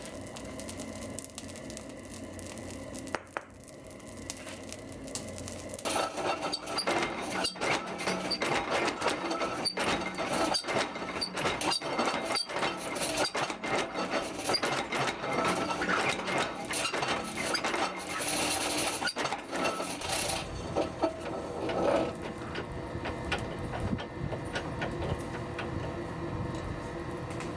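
Rapid, irregular metallic clicking and clinking of steel being worked at the forge, starting about six seconds in over a quieter steady background.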